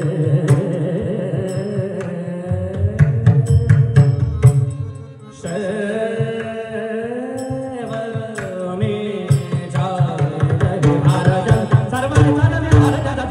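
Abhang devotional singing: a voice holding long melodic lines that bend in pitch, over pakhawaj drum strokes. The sound drops briefly about five seconds in, then the voice comes back and the drumming grows denser.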